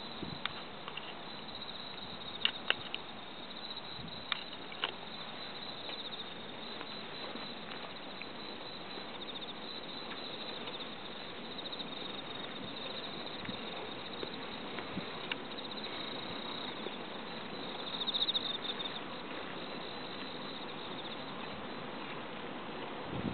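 A steady chorus of field insects trilling high, swelling briefly about eighteen seconds in. A few faint clicks in the first five seconds.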